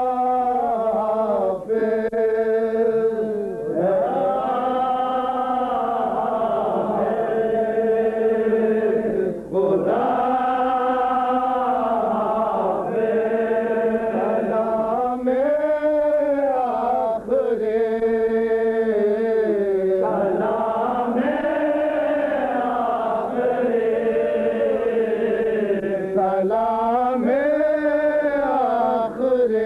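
A man chants an unaccompanied Urdu noha, a Shia lament, in long wavering melodic phrases with brief pauses for breath. The sound is dull and lacks a top end, as on an old tape recording.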